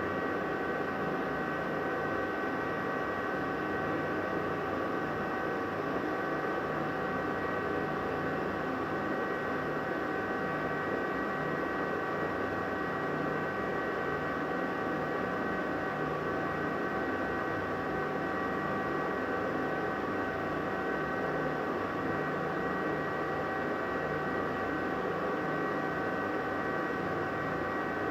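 Bathroom exhaust fan running steadily: an even rushing of air with a constant whine on top.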